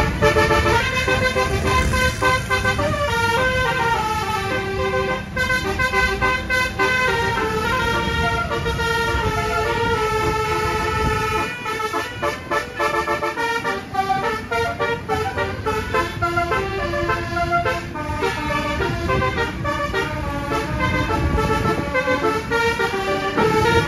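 A bus's telolet multi-tone horn (basuri type) plays a melody almost without pause, stepping from note to note, over a low road rumble that eases briefly about halfway through.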